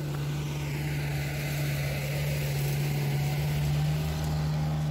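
Small pickup truck's engine running steadily at an unchanging low pitch as the truck drives up close and passes, with a hiss of tyres on the paved road, growing slightly louder as it goes by.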